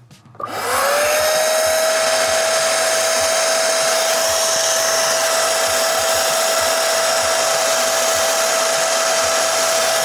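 Hoover CleanSlate carpet extractor's suction motor switched on, spinning up within about half a second to a steady whine and then running evenly.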